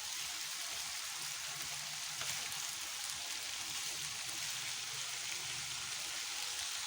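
Strips of liver with onions and hot peppers sizzling steadily in a frying pan: an even, hissing fry.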